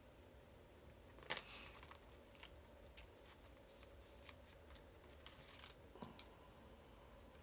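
Faint metallic clicks and light scrapes of a lock pick and tension wrench being worked in the keyway of a Master Lock Pro Series padlock, with one sharper click about a second in.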